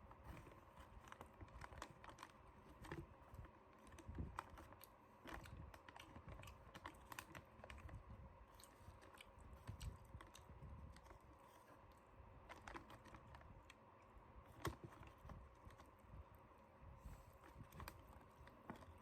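Faint chewing and small crunches of someone eating fried chicken, with scattered clicks and soft taps throughout.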